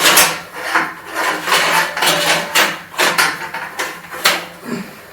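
A run of sharp knocks and scrapes, roughly two a second, from moving and handling the removed mirror panels.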